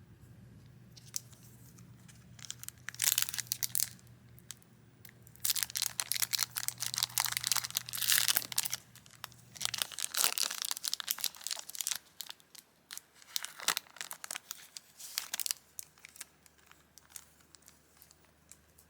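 Foil trading-card booster pack being torn open and its wrapper crinkled, in loud irregular bursts for several seconds, then lighter crinkles and crackles. A faint low hum stops about halfway through.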